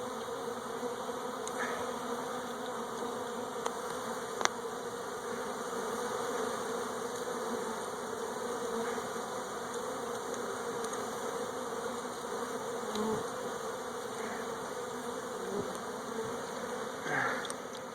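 Steady buzzing drone of many honey bees in flight around a colony being trapped out. Two short sharp clicks come about four seconds in.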